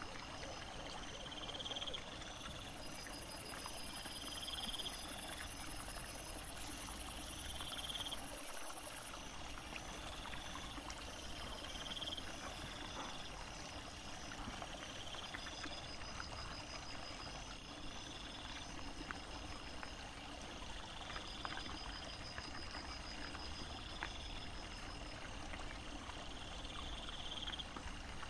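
Night ambience by a small woodland stream: water running steadily, with a short rising chirp that repeats every second or two, plus a few faint clicks.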